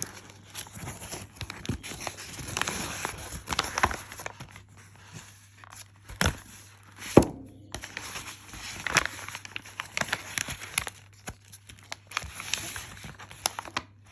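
Stiff oiled wrapping paper crinkling and rustling as it is unfolded from around a metal leather punch, in irregular spells, with two sharp knocks around the middle.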